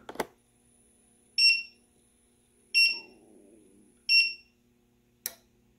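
An electronic beeper sounding three short, even beeps about one every 1.4 seconds over a faint steady hum, with a single click near the start and another near the end.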